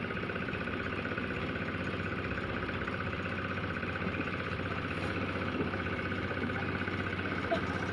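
An engine running steadily at an even speed, with a fast, regular firing pulse.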